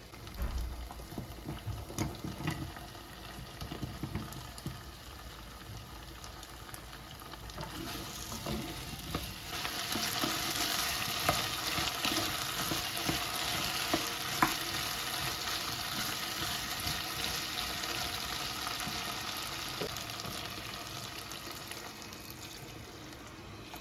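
Food sizzling in a hot pan, with a few light knocks of kitchenware in the first seconds; the sizzle swells about ten seconds in and slowly eases off.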